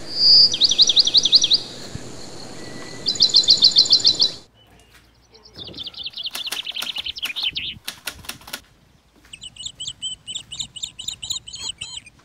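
Songbirds chirping: quick runs of repeated high trilled notes in several separate bursts, with a run of sharp clicks partway through.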